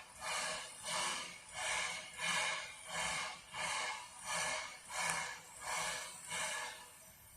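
Narrow-gauge steam locomotive chuffing steadily, about three exhaust beats every two seconds, the beats fading away near the end.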